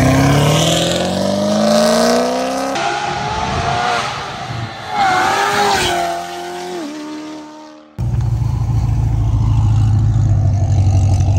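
Sports car engine accelerating hard, its pitch climbing steadily. After an edit, higher revs rise and fall away, and after another edit a steady low engine rumble.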